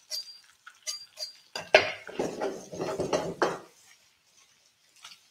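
A metal spoon clinking against a frying pan a few times while stirring, then about two seconds of scraping and rattling as the pan is shaken on the gas hob.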